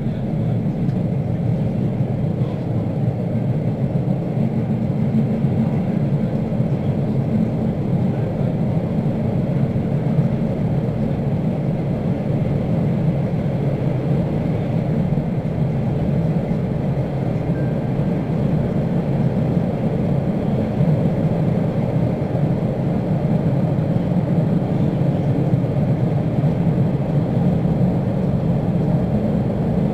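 Metro train running steadily, heard from inside the carriage: an even, unbroken low rumble of the train under way.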